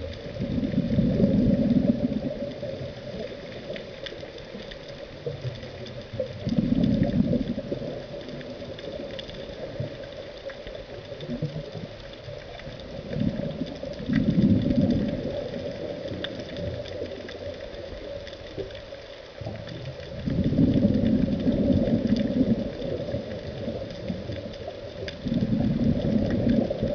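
Underwater recording of a scuba diver's breathing: exhaled bubbles from the regulator gurgle out in five bursts about every six seconds, with a steady low hum underneath.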